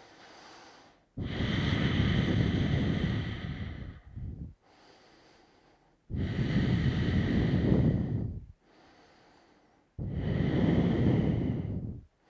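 A man breathing deeply and slowly while holding a yoga pose: three long, loud breaths about four seconds apart, with faint ones between.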